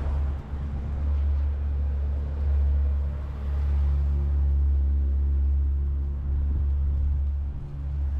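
Street traffic: a steady low rumble of motor vehicles, with a car engine's hum coming through from about three and a half seconds in to near the end.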